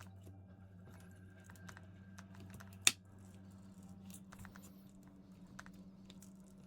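Small clicks and scrapes of a blunt tool prying a glued-down battery loose inside a Corsair HS70 Pro headset, with one sharp click about three seconds in. A low steady hum runs underneath.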